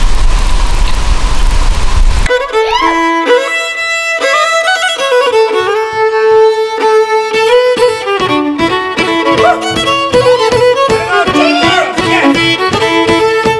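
Fiddle music, a bowed melody with sliding notes, starting abruptly about two seconds in after a steady rumbling noise.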